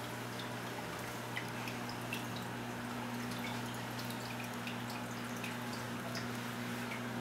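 Water dripping and trickling in a large saltwater aquarium, short scattered drops over a steady low hum.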